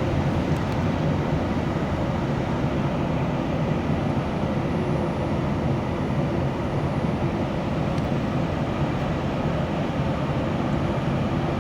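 Light rail train running along the track, heard from inside the passenger car: a steady rumble of wheels and running gear.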